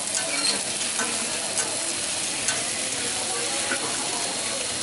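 Pork sausages and chopped onions sizzling on a hot flat steel griddle, a steady frying hiss, with a few light clicks of metal tongs turning them.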